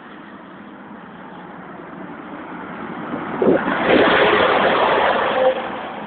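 Articulated lorry passing close by on a main road: its engine and tyre noise build to a loud rush about three and a half seconds in, then fall away as it goes by, with lighter car traffic around it.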